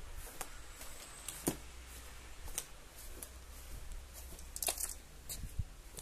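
Light clicks and scuffs, roughly one a second, over a steady low rumble: footsteps on a concrete path mixed with handling noise from a hand-held phone.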